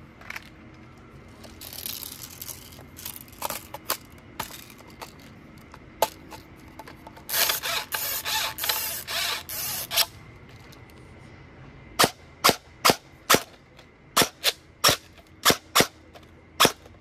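Electric airsoft gun firing on semi-auto: scattered single shots, a longer rattling stretch in the middle, then a quick string of sharp shots about two a second near the end.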